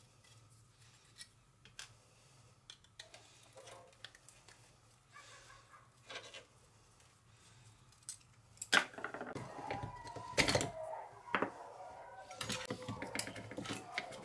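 Faint small clicks and scrapes of a screwdriver turning screws on a battery pack's circuit board. About two-thirds in, louder clicks, knocks and plastic rattling start as the pack's plastic case and lithium cells are handled and pulled apart.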